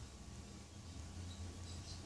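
Faint room tone: a steady low hum with no distinct handling sounds.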